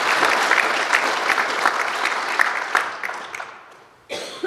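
Audience applauding in a hall, many hands clapping together, the applause dying away after about three seconds.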